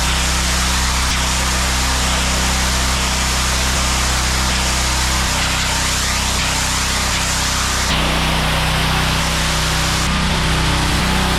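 Gas-engine pressure washer running, its steady engine drone under the loud hiss of a high-pressure water spray on concrete. The engine note and spray change abruptly about five and eight seconds in.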